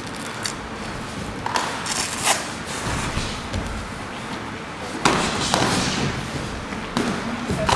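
Gloved punches and kicks landing during a kickboxing bout: several sudden thuds at irregular intervals, echoing in a large sports hall.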